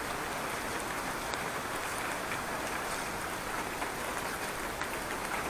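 Steady rain falling on the street and nearby surfaces, an even patter with a few faint drop ticks.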